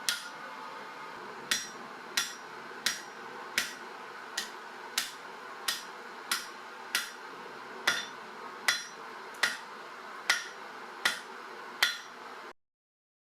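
Blacksmith's hammer striking hot steel on an anvil to upset it, thickening the bar's end for a wider spatula blade. About sixteen evenly paced blows, roughly one every three quarters of a second, each with a short metallic ring, over a steady background noise. The sound cuts off abruptly near the end.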